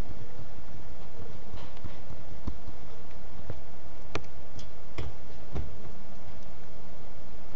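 A handful of sharp clicks and taps, about five spread over a few seconds, over a steady low rumble of room noise.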